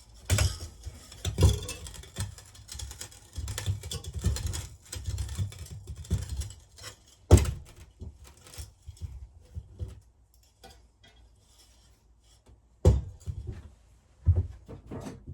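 Hands working on the parts of an electric melting furnace during disassembly: a busy run of scrapes, rattles and small knocks, then scattered clicks, with a few sharp knocks, the loudest about halfway through and another near the end.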